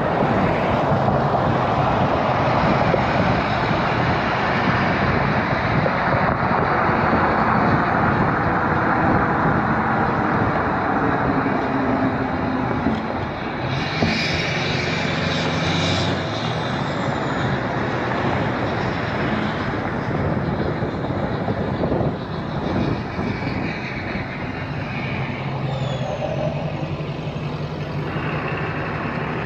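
Highway driving noise: a steady rumble of tyres on the road, with the engine notes of passing vehicles rising and fading, and a brief higher hiss about halfway through.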